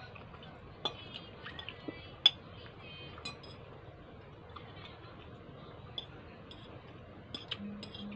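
Metal fork clinking and scraping against a plate while twirling spaghetti: a handful of sharp clinks with a brief ring, the loudest about two seconds in.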